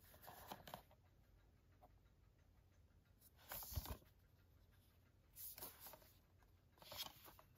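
Faint rubbing and scraping of a cardboard slipcover and plastic Blu-ray case being turned over in the hands, in four short soft bursts; the loudest, a little past the middle, ends in a light thud.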